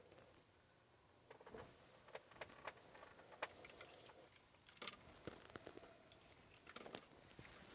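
Near silence, with faint rustling and scattered small clicks.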